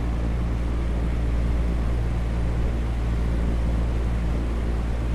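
Steady low rumble with a hum, unchanging in level.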